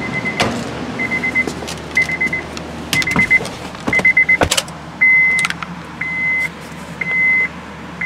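2013 Honda Pilot's cabin warning chime beeping about once a second, a high beep of about half a second each time. The first four beeps are buzzy; from about halfway through they turn to a clean tone. Clicks and knocks from the driver's door and someone climbing into the seat come in between, with a loud knock just before the chime changes.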